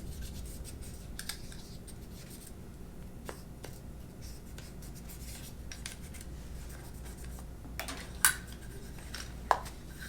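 Swab and cloth rubbing and scratching on the metal of an AR-15 upper receiver, with scattered light clicks of handling, and two sharper clicks near the end.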